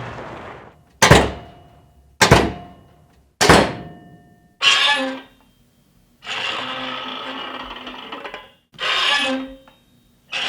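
Three heavy door slams, a little over a second apart. Then door hinges creak as a door swings: a short creak, a long drawn-out creak of about two seconds, and another short creak.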